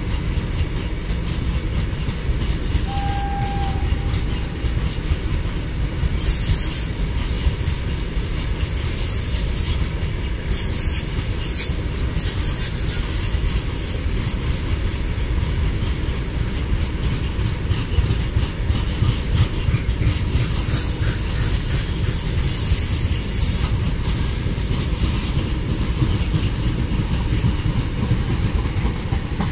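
Loaded open coal wagons of a long freight train rolling steadily past on the track: a constant low rumble of wheels on rail, with thin, intermittent high-pitched wheel squeal.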